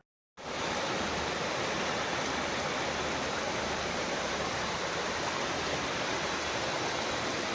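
Steady rush of fast-flowing water, even and unbroken, starting abruptly about half a second in.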